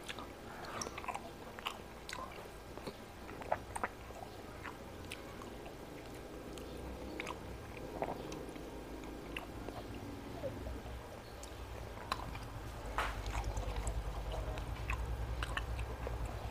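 Close-miked chewing and mouth sounds of a person eating, with scattered wet clicks and smacks. A low rumble comes in near the end.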